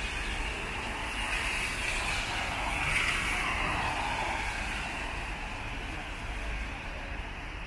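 Street traffic on a rain-soaked road: steady tyre hiss from cars on wet asphalt, with one car swishing past, loudest about three seconds in.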